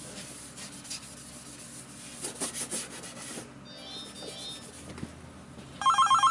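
A scrubbing, rubbing noise. Near the end, a desk telephone starts ringing with a loud, fast-warbling electronic trill.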